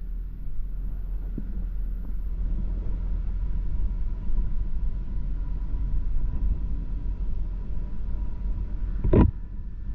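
Steady low rumble of a moving vehicle on the road, with a single short thump about nine seconds in.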